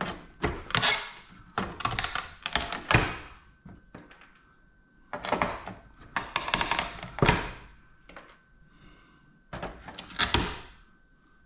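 Metal computer parts being pulled apart and handled, clattering and knocking in four bursts of sharp clicks and clanks.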